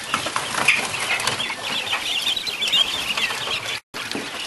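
Quail chicks peeping: many short, high cheeps overlapping in a busy chorus, with a few light knocks among them; the sound drops out for a moment near the end.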